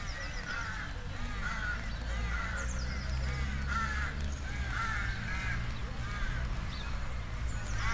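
Several crows cawing over and over, their calls overlapping, with a few brief high chirps from a small bird and a steady low rumble underneath.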